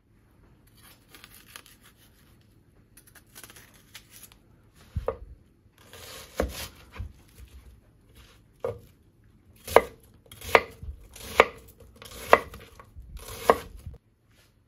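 Kitchen knife chopping an onion on a wooden cutting board: faint crackling of the onion being handled at first, then a few scattered cuts, then five steady chops about a second apart.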